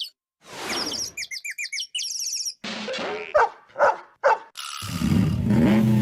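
Cartoon sound effects: quick high chirps over a hiss, then three short dog barks about half a second apart, then a louder low rumbling sound near the end.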